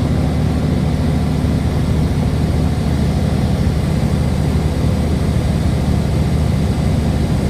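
Aircraft engine droning steadily, heard from inside the cabin as a loud, even low hum.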